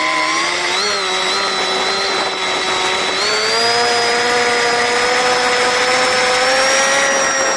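RC park flyer's motor and propeller whining at high throttle, rising in pitch about three seconds in and holding the higher pitch.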